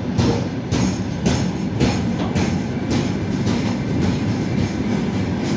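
Freight train of open gondola wagons rolling past close by: a steady rumble of steel wheels on rail, broken by a run of clacks as the wheelsets cross rail joints.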